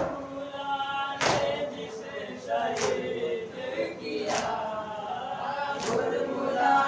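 A group of men chanting a noha lament in unison while striking their chests together in matam, a loud slap landing about every second and a half.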